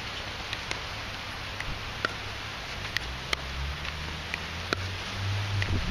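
A plastic pickleball being hit with a paddle and bouncing on a hard court: a string of sharp pops and clicks, about one a second, the loudest about three seconds in. A low engine hum rises in the second half.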